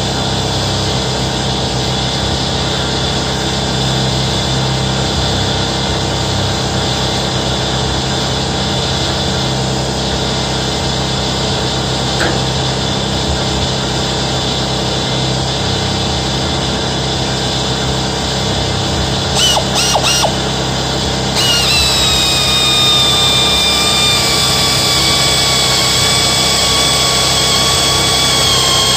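A small motor running steadily with a machine whine. About three-quarters of the way in, a higher whine joins it and slowly falls in pitch.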